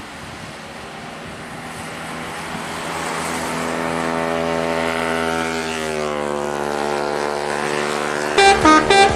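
A bus engine's note grows louder, dipping slightly in pitch about six seconds in. Near the end a telolet multi-tone musical horn starts playing a quick pulsing tune of alternating notes, much louder than the engine.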